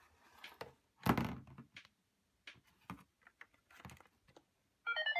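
Hard plastic clicks and knocks as an electronic learning toy is handled and its button pressed, the loudest knock about a second in. Near the end the toy starts a quick electronic beeping jingle.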